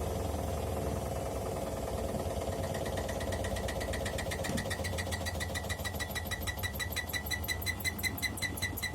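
Bosch Maxx 5 washing machine in its spin cycle: a steady motor-and-drum hum, joined from a couple of seconds in by a rapid, regular knocking, about five strokes a second, that grows stronger. The machine shakes and knocks like this on spin even with new shock absorbers fitted, and the owner wonders whether the drum bearings or the worn drum spider are to blame.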